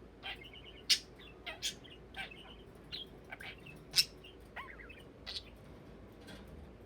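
Budgerigar chirping in short, scattered chirps, with a few sharp clicks among them, the loudest about a second in and about four seconds in.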